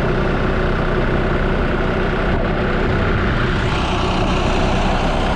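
The 2.5-litre three-cylinder diesel engine of a 1960 Massey Ferguson 35 tractor running steadily, heard close up.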